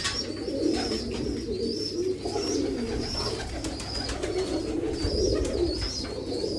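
A flock of domestic pigeons cooing continuously, many birds at once. Short high chirps repeat every second or so, with scattered light clicks.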